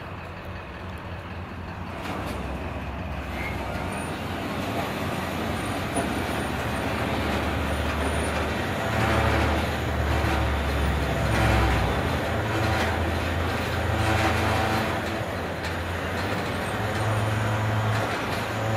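Heavy truck engine running, its level swelling and easing, while the tow truck's bed and winch let down a disabled van.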